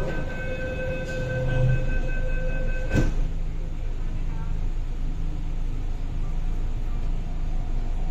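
Inside an MTR East Rail Line R-Train carriage: a steady electronic warning tone sounds for about three seconds and ends with a single thud, typical of the sliding doors closing. A steady low rumble of the train follows.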